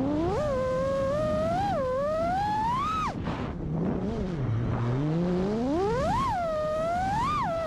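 Freestyle FPV quadcopter's brushless motors and propellers whining as the throttle is worked: the pitch climbs to a peak about three seconds in and drops sharply, sinks low, then climbs to two more peaks before falling again near the end.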